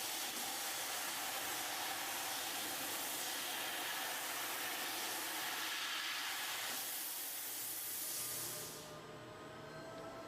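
Fiber laser cutting 2 mm brass: a steady hiss of high-pressure assist gas jetting from the cutting head through the kerf. The hiss stops near the end as the cut finishes, leaving a fainter machine hum.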